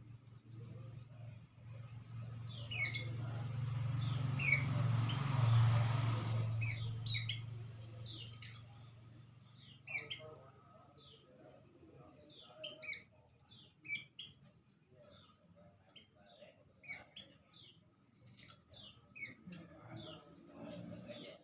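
Birds calling at night: many short, quickly falling chirps, scattered irregularly and sometimes in quick pairs or runs. A low rumble swells and fades over the first several seconds, and a steady thin high whine runs underneath.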